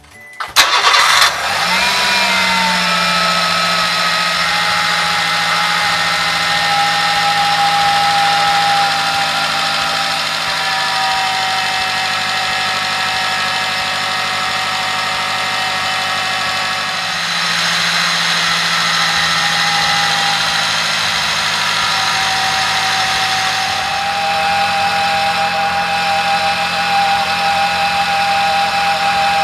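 Subaru Sambar Dias supercharged engine started and left idling steadily, running with its alternator and air-conditioning belt on a freshly replaced tensioner pulley, fitted because the old pulley was making a noise. The idle sound shifts slightly a couple of times later on.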